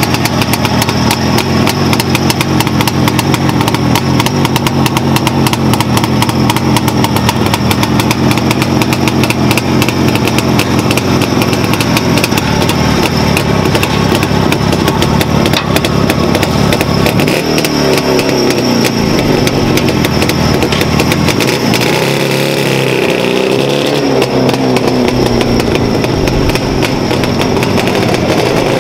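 Jawa 360 motorcycle's twin-cylinder two-stroke engine idling steadily, then revving up and down several times from a little past the middle as the bike pulls away and rides off.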